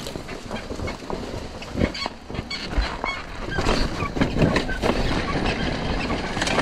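Two-stroke enduro dirt bike engine running at low revs over rough rocky ground, with irregular knocks and clatter from stones and the bike, and wind on the microphone.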